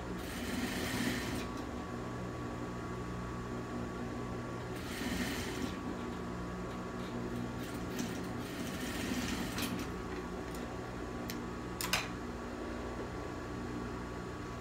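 Industrial sewing machine stitching in three short runs, near the start, about five seconds in, and around eight to ten seconds, with a steady hum underneath. A few sharp clicks follow the stitching, the loudest about twelve seconds in.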